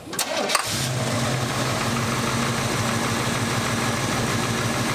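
Box Chevy Caprice engine being started: a brief crank about half a second in, then it catches and settles into a steady idle. It is run to listen for a tick that the owner thinks might be a lifter.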